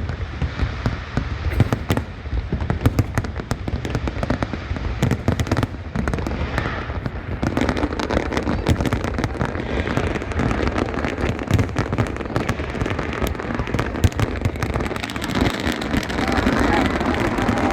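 Aerial fireworks going off in a dense, rapid barrage of bangs and crackles, with crowd voices beneath.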